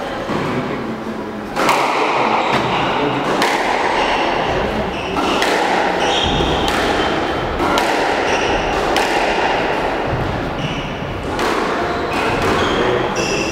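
Squash rally: the ball cracking off rackets and the front and glass walls about once a second, starting about a second and a half in, each hit ringing briefly in the hall.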